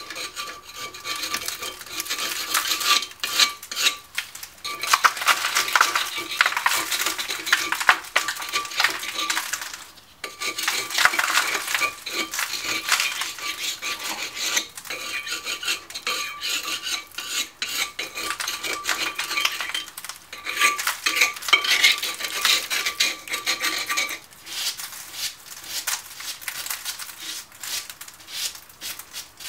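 Wire brush scrubbing rust off a 2004 Jeep Liberty's rear brake rotor: rapid, continuous metal-on-metal scraping, broken by a few short pauses.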